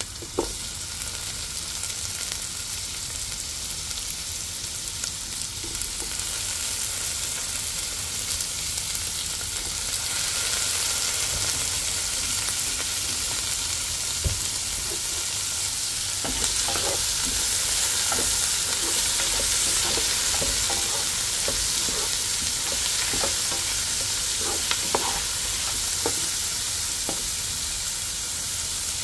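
Food sizzling in a hot frying pan while it is stirred. The sizzle grows louder about ten seconds in, and from about halfway on a spoon or spatula clicks and scrapes against the pan now and then.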